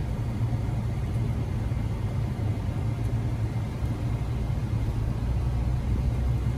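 Car driving on a town street, heard from inside the cabin: a steady low rumble of engine and road noise.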